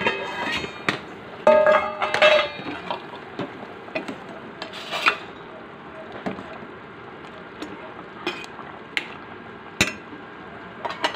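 A steel ladle knocking and scraping against a stainless steel pot while stirring boiling food, with the loudest ringing clanks in the first two or three seconds and sparser taps after, over a steady hiss from the boiling pot.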